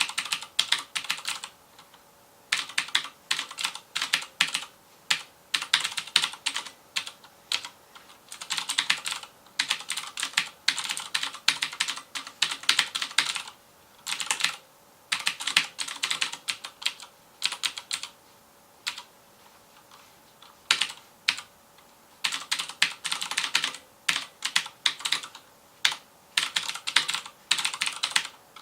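Fast typing on a FILCO Majestouch Convertible 2 mechanical keyboard with clicky Cherry MX Blue switches. Quick runs of keystrokes are broken by short pauses, with a longer, sparser lull about two-thirds of the way through.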